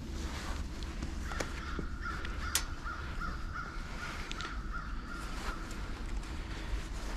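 A crow cawing over and over, about two caws a second, from about a second in to past the middle. Under it are a few sharp clicks from the metal tree stand being handled, and a steady low rumble of wind.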